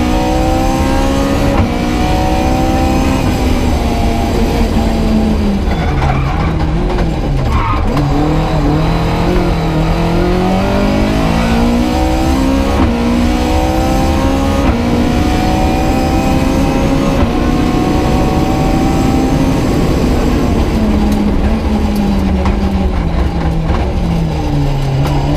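Opel Kadett 2.0 Rallye's four-cylinder engine at full effort, heard from inside the cockpit with road and gravel noise. The engine note dips early on, climbs steadily for several seconds through the middle, then falls away again towards the end as the car slows.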